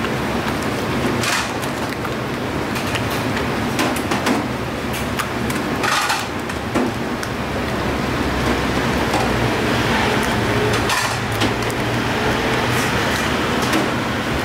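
A hand working thick meatball batter in a stainless steel bowl: wet slaps and scattered knocks against the metal, over a steady background hum.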